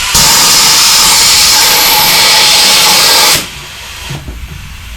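Compressed air blasting from an air-line nozzle into a motorcycle frame tube, a loud steady hiss to blow a weighted string down the tube. It cuts off suddenly about three and a half seconds in.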